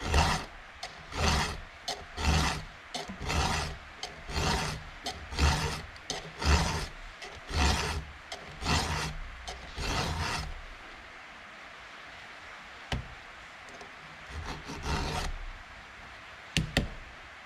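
Round file sharpening a cutter on a Stihl chainsaw chain: about ten steady rasping push strokes roughly a second apart, stopping about ten seconds in. A few sharp clicks follow near the end.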